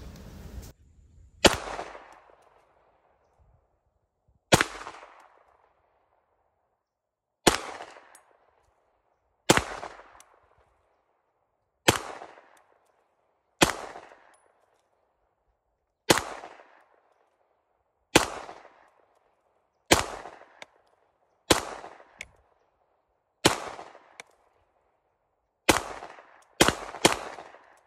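Stoeger STR-9F 9mm pistol firing Blazer 9mm rounds, about fourteen single shots spaced roughly two seconds apart, with three quick shots near the end. Each shot has a short echo trailing after it.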